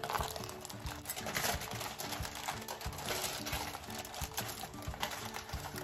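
Aluminium foil crinkling and rustling as it is folded and pressed closed around a food parcel by hand, over quiet background music.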